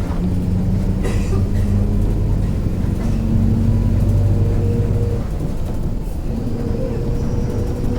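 Mercedes-Benz OF-1721 city bus under way: its diesel engine and drivetrain give a steady low drone with held tones above it. The differential is growling ("roncando"), the sign of a worn differential. The low hum eases about five seconds in.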